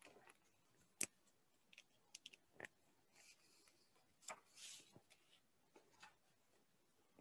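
Near silence on a video call, with faint scattered clicks and two brief soft rustles.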